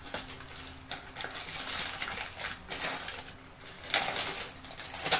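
Gift wrapping paper being torn and crumpled by hand: a run of irregular crackling rustles, loudest about four seconds in, with one sharp crackle near the end.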